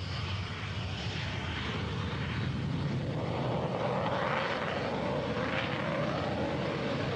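Jet aircraft engine running: a steady rushing noise, joined about halfway through by a whining tone that holds to the end.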